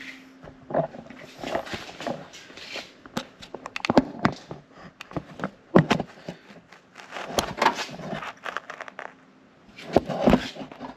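Hands handling a wiring harness and plastic parts in a car's engine bay: irregular rustling, clicks and knocks as an LED grille's wiring harness is routed and connected.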